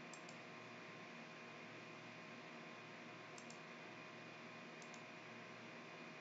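Near silence with a faint steady hiss and a few faint computer-mouse clicks: one near the start and two more a little past halfway.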